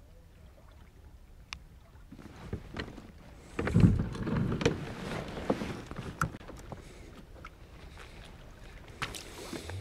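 Knocks, clicks and rustles of gear being handled on a fishing kayak, starting faintly and picking up about two seconds in, with a low thump against the hull at about three and a half seconds.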